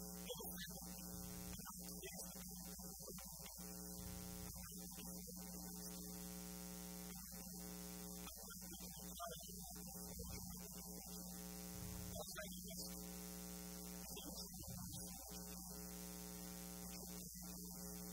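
Steady electrical mains hum with a buzzy ladder of overtones.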